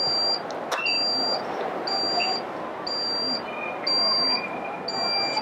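Prepaid electricity (token) meter's alarm beeping because its units are running low or out: a high electronic beep repeating about once a second, each beep about half a second long, like a vehicle's reversing beeper.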